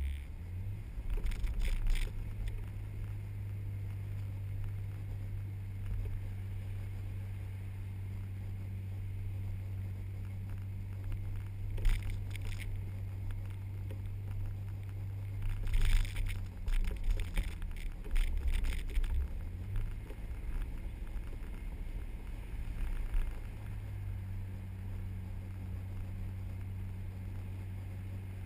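Vehicle engine running steadily with a low hum while driving slowly over soft beach sand, its pitch shifting a few times. A few brief bursts of noise come over it.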